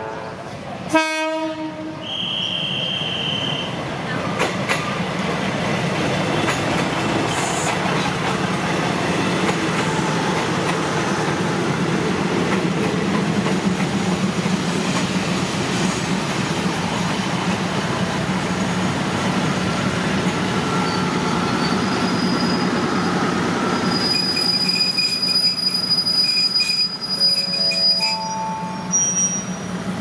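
A diesel railcar train arrives at the platform and runs slowly past, its engines and wheels making a steady low rumble, with a short horn blast about a second in. From about 24 seconds in, a thin high squeal of brakes and wheels joins as the train slows to a stop.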